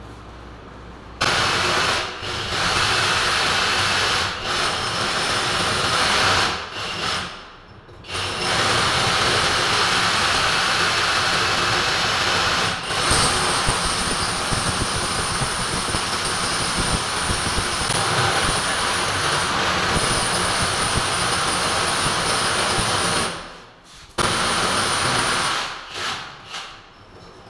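Electric drill boring into a wall, running in three long spells with short pauses: a few seconds, then a stretch of about fifteen seconds, then a short burst near the end.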